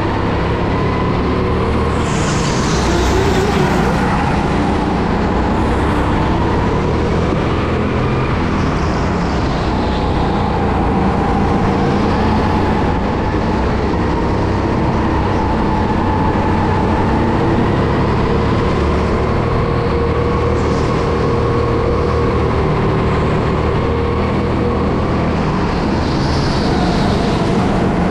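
Go-kart running at racing speed, heard from on board: a loud, steady motor note whose pitch drifts up and down with speed through the lap.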